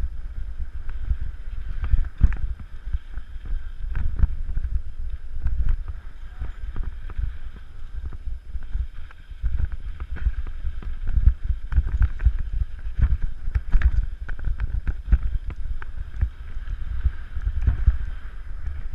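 Wind buffeting the microphone: an uneven low rumble that swells and drops irregularly.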